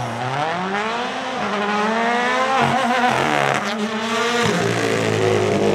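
Toyota GR Yaris Rally1's turbocharged four-cylinder engine revving hard as the car accelerates. The pitch climbs, drops back and climbs again several times through gear changes, then settles lower about four and a half seconds in.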